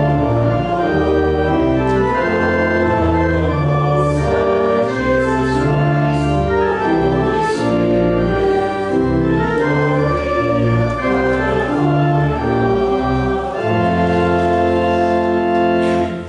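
Church organ playing a hymn in sustained chords that change every second or so. The music stops about a second before the end.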